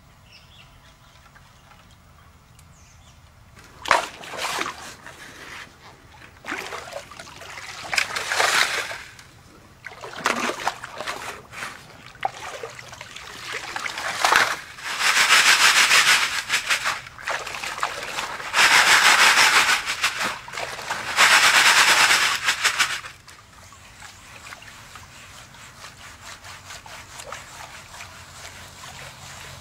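Creek gravel and water shovelled into a classifier screen over a bucket standing in a shallow creek: loud splashing and pouring water in repeated bursts of one to two seconds. After that the sound drops to a quieter steady trickle and slosh of water as a gold pan is worked in the creek.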